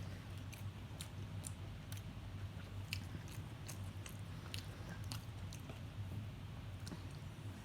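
A person chewing and biting into fried food, chicken patty and tater tots, with irregular crisp clicks of the bites and chews. A steady low hum runs underneath.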